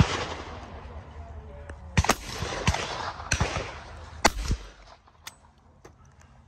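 Shotgun shots: a series of sharp cracks, the loudest about two and four seconds in, then a few fainter clicks.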